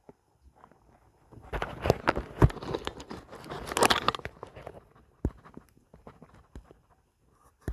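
Close rustling and crunching that lasts about three seconds, followed by a few scattered faint clicks and crackles.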